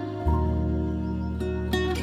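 Soft background music: a few plucked notes over held bass notes, which change about a quarter second in.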